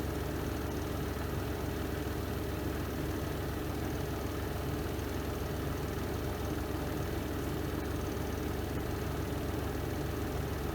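Spin drum of a Renova semi-automatic twin-tub washing machine running steadily through its spin cycle, a constant low hum.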